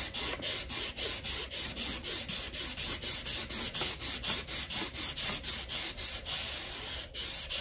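2000-grit wet-and-dry sandpaper, dampened with WD-40, rubbed quickly up and down a motorcycle's chrome fork stanchion by hand at about four strokes a second. It is a rasping hiss, smoothing out rust pitting in the chrome. The strokes ease off briefly near the end, then resume.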